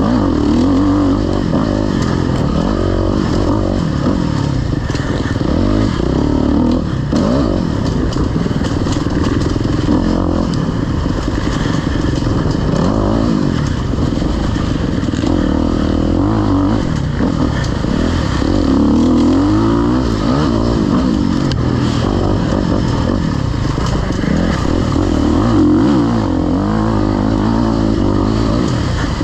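Off-road dirt bike engine being ridden hard, its revs rising and falling over and over as the rider works the throttle and gears.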